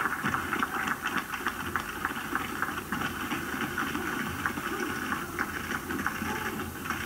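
Audience applause, a steady patter of many hands clapping with a low murmur of voices underneath.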